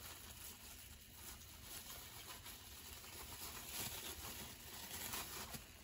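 Faint, steady crackling sizzle of scrambled eggs cooking in a nonstick frying pan.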